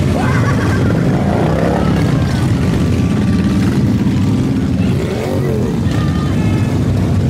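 Several Harley-Davidson motorcycles passing one after another at parade pace, their V-twin engines loud and steady, with a brief rise and fall in engine pitch about five seconds in.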